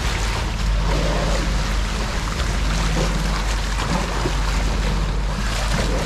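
Water rushing and splashing at a boat's bow as it cuts through the sea, with wind on the microphone and a steady low rumble underneath.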